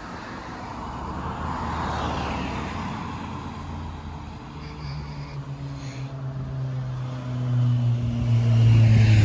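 Cars driving past on the road, with tyre noise, then an engine humming and growing louder as a vehicle comes closer near the end.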